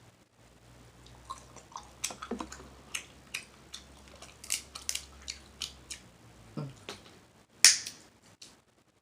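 Close-miked mouth sounds of a person chewing a sauce-dipped shrimp: wet smacking and clicking, irregular and continuous, with one sharp loud smack about three-quarters of the way through.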